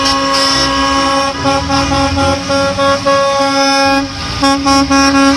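School bus horn sounding in one long, unbroken, steady tone, over the low rumble of bus engines.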